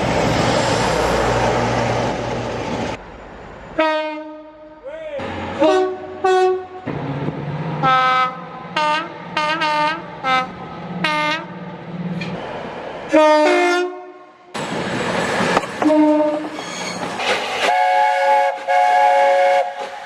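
British railway locomotive and multiple-unit horns sounding in a string of separate clips: first the noise of a train running on the track, then a series of horn blasts, many of them short two-tone toots, and a longer two-note horn near the end.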